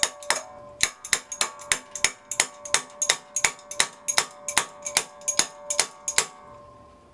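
Rapid metal-on-metal tapping, about three blows a second, from a crescent wrench used as a hammer to knock a drill press pulley down onto its shaft. Each blow leaves a short ringing tone. The tapping stops about six seconds in and the last ring fades.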